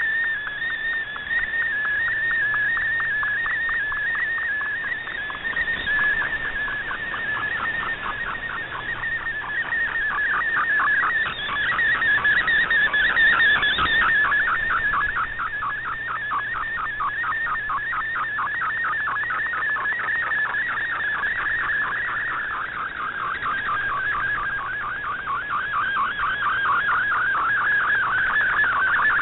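Shortwave MFSK picture transmission heard through a communications receiver: a fast, regular warbling tone sweeping up and down between about 1 and 2 kHz as the image is sent line by line, over shortwave hiss, with the signal fading and swelling a few times.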